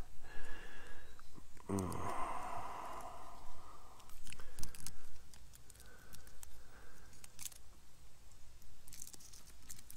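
Garlic cloves being peeled by hand: the dry papery skins crackle and tear in irregular small clicks.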